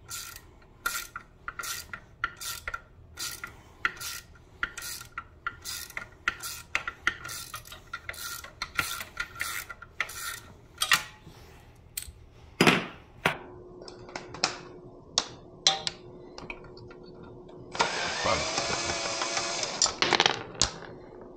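Ratcheting hex screwdriver clicking in a steady rhythm, about two to three clicks a second, as a screw is backed out of a motorcycle's front spoiler. Later comes a single knock, then a short whirring noise of a couple of seconds near the end.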